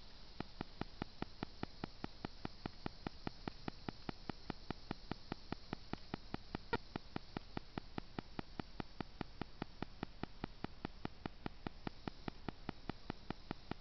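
Rapid, evenly spaced ticking, about seven clicks a second, starting abruptly just after the start and with one louder click midway, over a faint steady hiss and hum.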